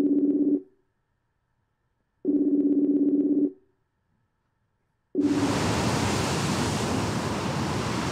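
Outgoing video-call ringing tone, a fluttering two-note ring of about a second each, heard twice. About five seconds in, a third ring is cut short by the loud, steady rush of sea surf.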